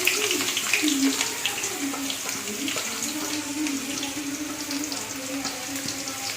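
Chopped onions frying in hot coconut oil in a pan: a steady sizzle with small crackles.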